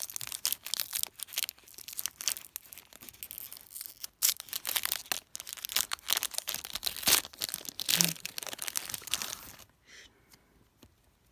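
Foil wrapper of a Pokémon trading card booster pack crinkling and tearing as it is ripped open by hand. The crinkling falls quiet near the end as the cards come out.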